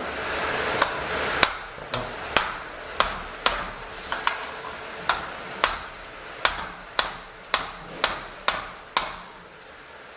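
Sharp metallic taps or knocks, about two a second at uneven intervals, each ringing briefly, stopping shortly before the end.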